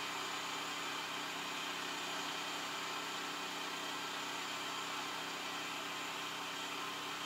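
Diesel engine of a Yanmar YT333 tractor idling steadily, heard from inside the tractor's cab.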